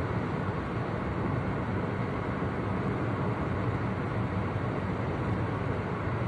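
Steady road and engine noise heard inside the cabin of a car cruising along a highway, a low, even rumble with no changes.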